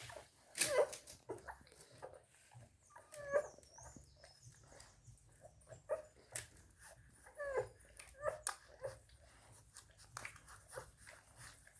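Eleven-day-old German Shepherd–Belgian Shepherd cross puppies whimpering and squeaking in short, scattered cries that bend in pitch, with soft clicks between them.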